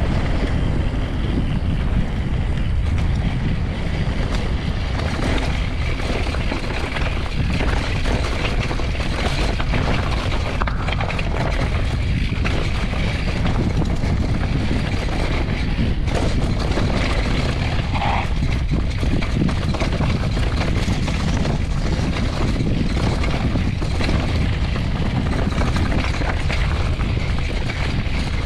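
Mountain bike rolling fast down a dirt trail: steady low wind buffeting on the microphone, with tyre rumble and the rattle of the bike over bumps.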